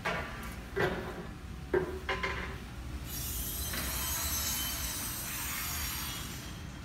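A long metal straightedge being handled on a fabric-cutting table: four or five sharp metallic clinks and knocks in the first two and a half seconds. Then a steady high hiss for about three and a half seconds, over a constant low hum.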